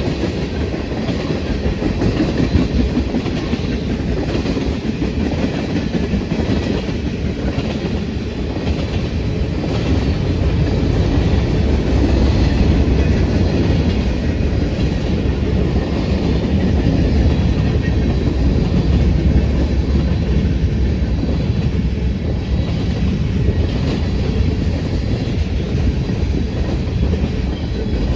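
A train's cars rolling past at close range, a steady rumble with the rhythmic clickety-clack of wheels over rail joints.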